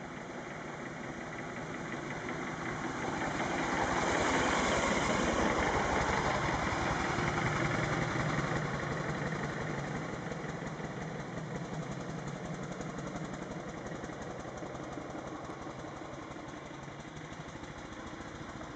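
Antique Buick touring car's engine running with a steady beat as the car drives past on a dirt lane, growing louder over the first few seconds, then fading slowly as it moves away.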